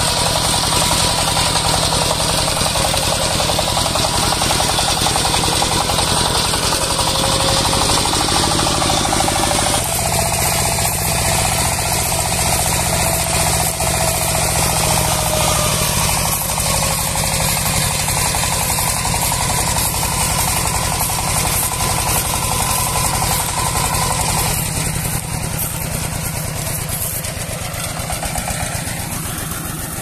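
Two-wheel power tiller's single-cylinder diesel engine chugging steadily under load as it tows a trolley piled with rice straw, getting somewhat quieter near the end.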